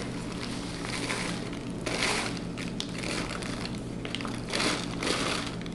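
Paper inner bag of a box of dry baking mix rustling and crinkling as the mix is shaken out into a glass measuring cup.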